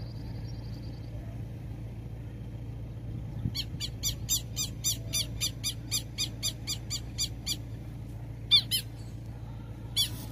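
Southern lapwing calling: a fast run of sharp, shrill calls, about four a second, starting about a third of the way in, a short pause, then more calls near the end. This is its alarm call near its nest and chick.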